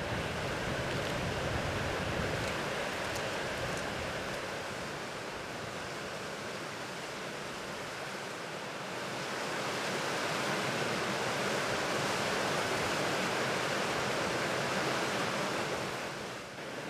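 Steady rushing of wind and sea surf, swelling about nine seconds in and easing off near the end.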